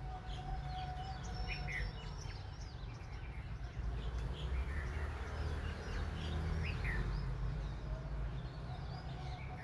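Several birds chirping and calling with short, quick notes, over a steady low rumble of background noise.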